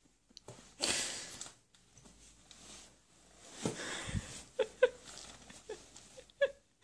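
Rustling and a couple of dull knocks as a baby clambers around inside a soft fabric suitcase and the lid comes down over it, about four seconds in. A few brief vocal squeaks follow.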